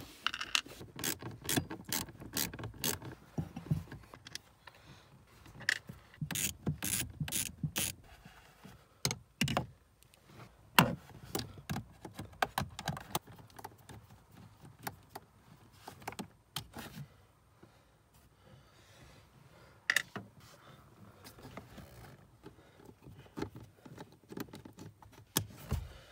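Screwdriver working the screws out of the blower motor cover under a Ford Fiesta Mk6 ST's dashboard: runs of quick clicking with pauses between them, and a few louder single clicks later on.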